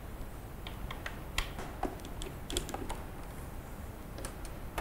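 Irregular light clicks and taps of a Phillips screwdriver and screws as a monitor stand's mounting plate is screwed down to the four holes on the back of the monitor.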